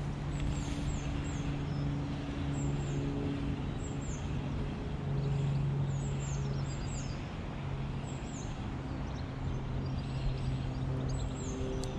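A low, steady engine hum runs throughout, with small birds chirping above it in short, high, falling notes.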